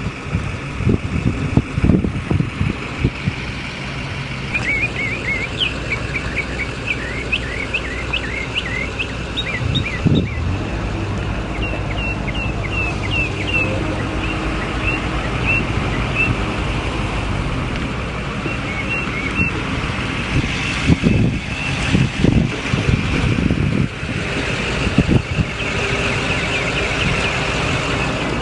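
Car engine and road noise from a moving car, steady throughout, with low thumps now and then. A stretch of short, scattered high chirps comes a few seconds in and lasts several seconds.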